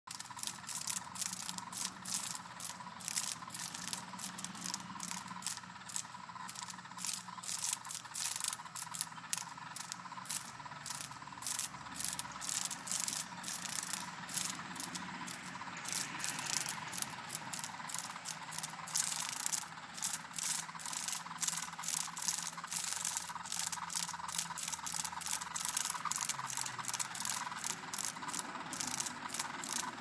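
A cicada buzzing and flapping its wings as it spins on its side on concrete, its wings scraping against the ground in rapid, uneven bursts, several a second.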